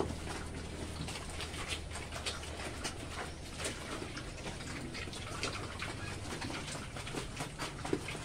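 Pigs feeding at a concrete trough: irregular wet smacking and chomping as they eat a mash of boiled taro and grated coconut, over a low steady hum that fades after the first few seconds.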